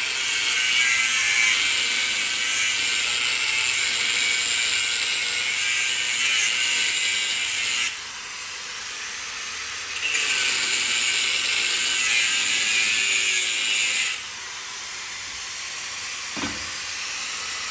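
Angle grinder disc cutting into the welded steel shell of a hermetic LG compressor: a steady, high grinding hiss that dips for about two seconds midway, comes back, and drops away a few seconds before the end. A single short knock follows near the end.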